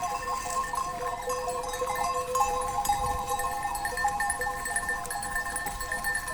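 Many cencerros, livestock bells worn by a grazing flock or herd, clanking and ringing continuously in an overlapping jangle of several bell pitches.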